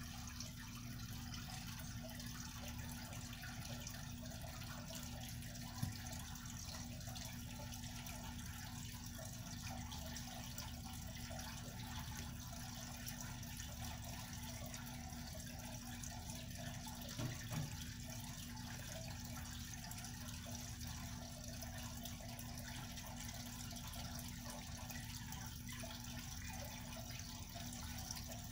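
Steady background hiss with a constant low hum, and faint knocks about six seconds in and again around seventeen seconds in.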